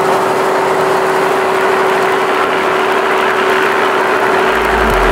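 Engine of a motorized outrigger boat (bangka) running steadily under way, a steady hum over a loud rush of wind and water. A low bass note of music comes in near the end.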